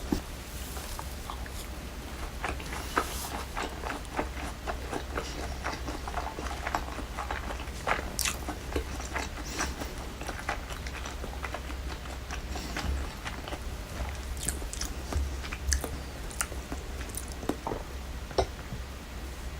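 Close-miked biting and chewing of crispy fried chicken karaage, with many short crunchy crackles throughout, over a steady low hum.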